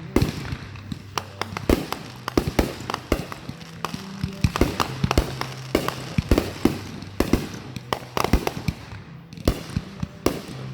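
Fireworks going off: a rapid, irregular run of sharp bangs and pops, about two a second, with music playing underneath.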